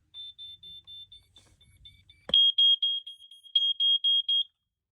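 Smoke alarm's piezo sounder going off on test with rapid, even beeps, about five a second. It starts faint, then after a click a little over two seconds in it turns much louder and slightly lower in pitch, and cuts off near the end. The sounder has just been refitted, and the owner says it was being weird.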